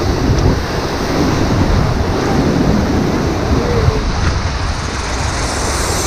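Rushing white water of a river rapids ride churning around a circular raft, a loud steady rush with wind on the microphone.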